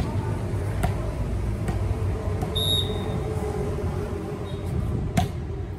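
Volleyball match ambience: a steady low rumble of background noise with a few sharp ball strikes, the loudest about five seconds in.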